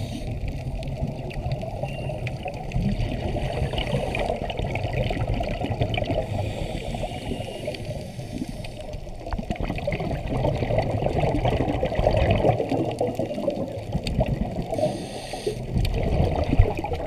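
Muffled underwater noise of water rushing and bubbling around scuba divers, heard from inside an underwater camera housing and swelling and fading in slow waves.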